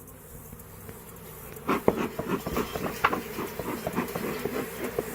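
Honey bees buzzing steadily around the open hive boxes, with irregular knocks and clicks from about a second and a half in as the hive parts are handled.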